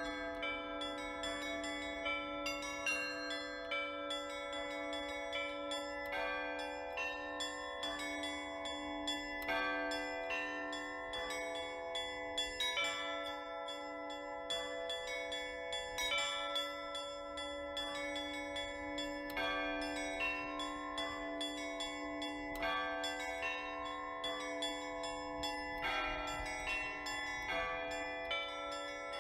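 Russian Orthodox church bells of the Church of the Transfiguration in Krymskoye rung as a peal (zvon) by one bell ringer: quick, patterned strikes of the small bells ring out over the sustained hum of the larger bells.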